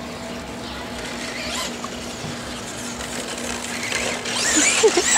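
Traxxas Slash VXL brushless electric RC truck running, its motor whining steadily. It grows louder with a hissing rush about four seconds in as the truck comes near.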